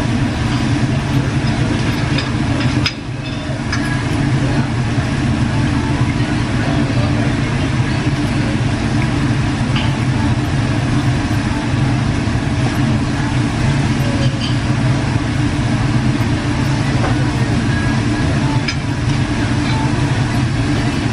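Steady low rumble of Korean BBQ restaurant background noise, with a few faint clinks of tableware. The rumble drops briefly about three seconds in, then carries on.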